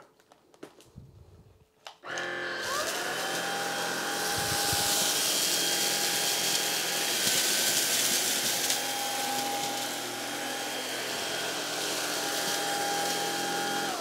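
Greenote GSC50 cordless stick vacuum switched on about two seconds in, its motor whine rising and settling to a steady pitch over a loud hiss of suction. It runs in normal mode while sweeping rice and cornflakes from a thick pile carpet, and cuts off at the very end.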